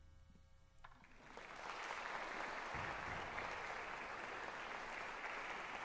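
The last ringing notes of the mallet percussion fade out, and about a second in audience applause starts, swelling into steady clapping.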